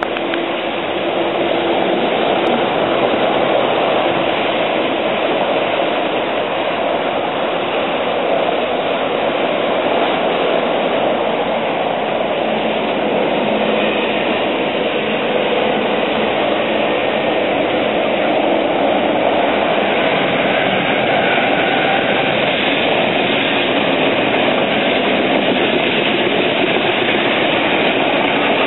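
Steady running noise of an East Rail Line electric train on the track, heard together with traffic on the highway alongside. The train approaches from a distance and is passing close by near the end.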